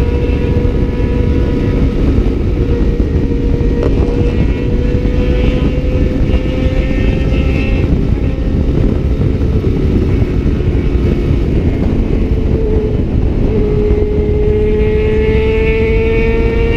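Motorcycle engine pulling hard at speed with heavy wind rush on the microphone. Its pitch climbs slowly, drops briefly about three-quarters of the way through, then climbs again.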